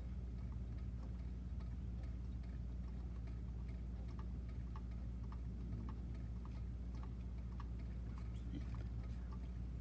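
Steady low electrical-sounding hum with a faint, regular ticking, about two or three ticks a second.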